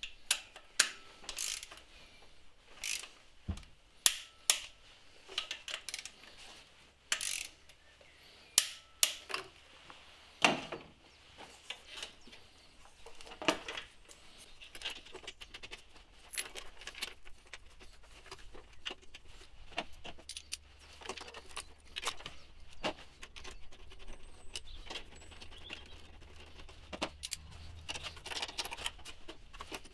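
Sharp metallic clicks and clinks of hand tools on car engine bolts: a torque wrench and sockets being worked and handled, spaced about a second apart in the first half, then a socket ratchet ticking in quicker, lighter runs in the second half.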